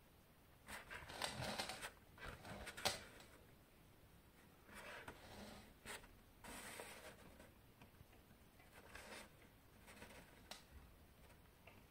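Near silence with faint scratchy rustling and a few light clicks of handling, scattered through, the sharpest click about three seconds in.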